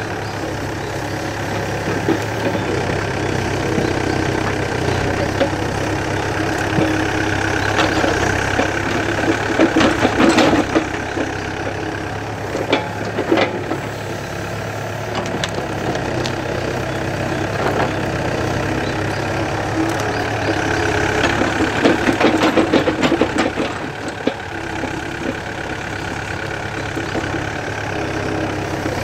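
Mini excavator's diesel engine running steadily, growing louder twice as the hydraulics take load while the bucket and thumb dig out a stump and its roots. A few sharp knocks come in the middle.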